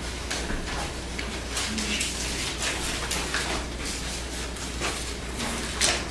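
Paper handouts rustling and crinkling as sheets are passed out and handled, a string of short scattered rustles over a steady low room hum.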